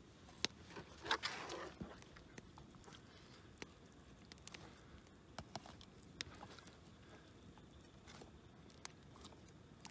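Scattered soft clicks and taps as a small channel catfish is handled and filleted with a knife on a plastic cooler lid, with a short patch of scraping and rustling about a second in.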